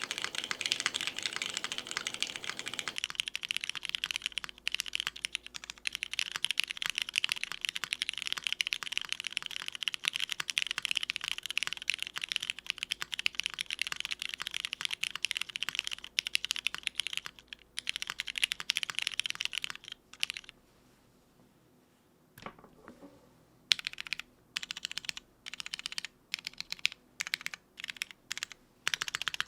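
Fast continuous typing on a custom mechanical keyboard with Cherry New Nixie switches (lubed and filmed) on a full aluminum plate, with GMK keycaps. About twenty seconds in the typing stops for a few seconds, then comes back as short separate bursts of keystrokes.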